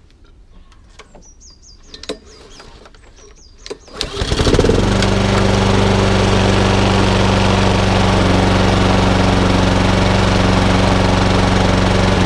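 Honda four-stroke lawnmower engine starting cold on its automatic choke about four seconds in, then running at a steady speed.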